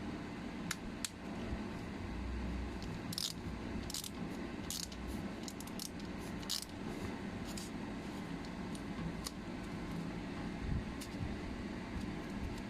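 Scattered sharp metallic clicks and clinks, some in quick little groups, from a hand ratchet screwdriver and its metal parts being handled and worked, over a steady low background rumble.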